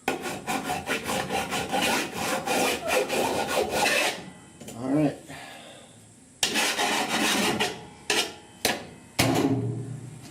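Hand file scraping back and forth along the trimmed sheet-steel edge of a welded-in roof patch panel, smoothing it so it won't cut the windshield rubber. Quick strokes run for about four seconds. After a short pause the filing comes back in bursts of a few strokes, with two single strokes near the end.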